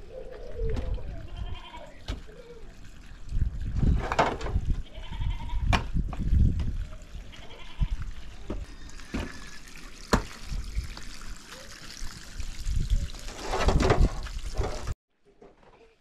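Stones and shovels knocking and scraping as stone and mud are loaded into a metal wheelbarrow, a sharp knock every few seconds, with goats bleating and voices in the background. The sound cuts off suddenly about a second before the end.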